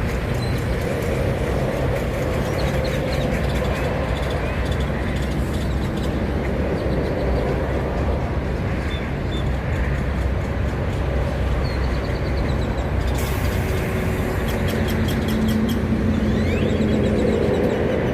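Grackles calling with short chirps, rapid clicking rattles and a rising whistle, over the steady low running of an idling truck engine.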